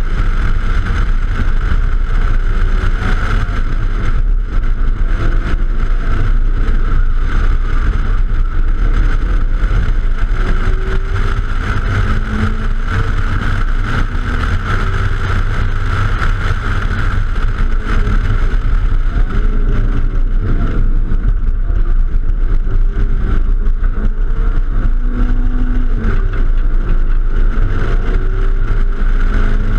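Wind buffeting an outside-mounted microphone on a hatchback at track speed, with tyre and road rumble. The car's engine note rises and falls faintly underneath as it accelerates and shifts.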